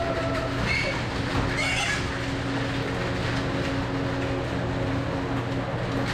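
Pigs squealing, two short shrill squeals about a second apart near the start, over a steady mechanical hum.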